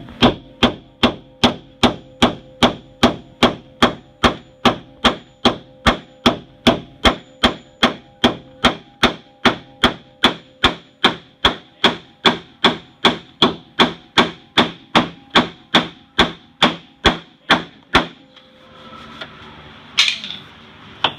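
Steady hammer blows on metal, about two a second, each with a short ringing note, knocking back the car's metal for radiator clearance. They stop about 18 seconds in, and a single sharp clank follows a couple of seconds later.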